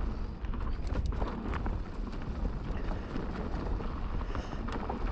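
Mountain bike rolling down a dirt trail: a steady low rumble of tyres and wind on the microphone, with frequent clicks and rattles from the bike.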